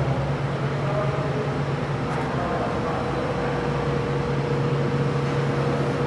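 Steady mechanical hum: a low drone with a higher humming tone over it, holding even throughout.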